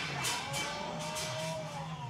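Background music with strummed guitar, strokes about every half second.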